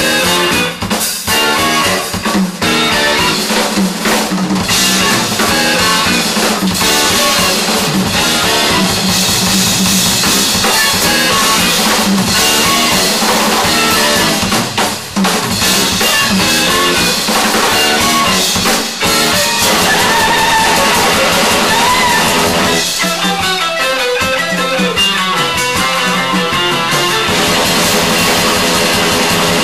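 Loud, dense rock music from a full band, driven hard by a drum kit with guitar over it. About 23 seconds in, the low drums drop away briefly before the full band comes back.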